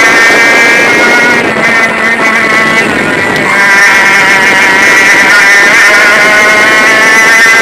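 100cc two-stroke kart engine running at high revs. The revs drop briefly about a second and a half in as the throttle comes off for a corner, then climb again as the kart accelerates out.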